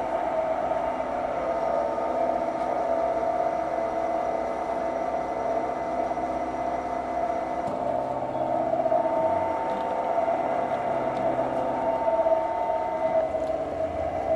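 Milling machine taking a 1 mm-deep facing cut across an aluminium plate with cutting oil: the spinning cutter and spindle give a steady whine with several held tones.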